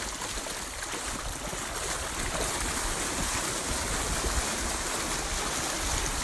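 Lake water splashing and churning steadily around a horse moving through it, a continuous rushing noise with a low rumble underneath.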